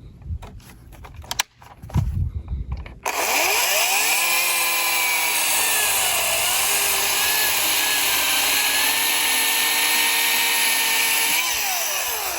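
Ryobi 40-volt brushless cordless chainsaw with an 18-inch bar, starting about three seconds in after a few handling knocks, its whine rising quickly to speed. It then runs steadily while cutting through a 12-inch silver maple limb, its pitch dipping under load partway through and rising again near the end as the cut finishes.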